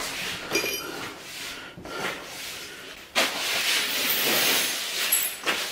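A broom sweeping broken plate shards across a wooden floor: a short ringing clink about half a second in, then a steady scraping, rustling noise from about three seconds in.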